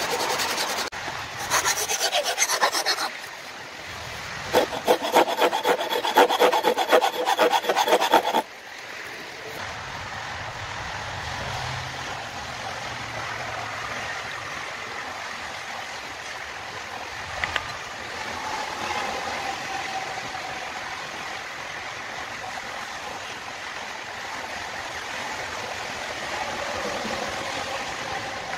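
A rasp scraping the wooden hatchet handle in quick, rapid strokes, in two bouts with a short pause between. About eight seconds in it stops abruptly, leaving a steady, quieter background hiss with a faint low hum.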